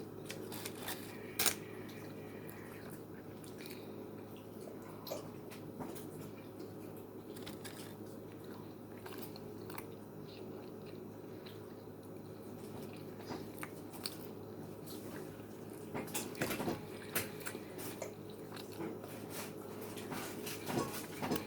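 A person eating up close: quiet biting and chewing with scattered short mouth clicks, growing busier near the end, over a steady low hum.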